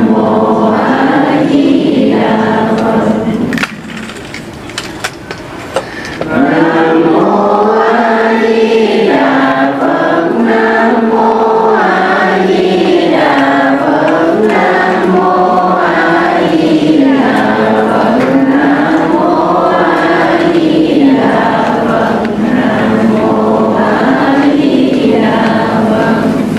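Many voices chanting the Buddha's name (niệm Phật) in unison in Vietnamese Buddhist style, a slow melody of long, smoothly rising and falling notes. The chant drops away about four seconds in and resumes a couple of seconds later.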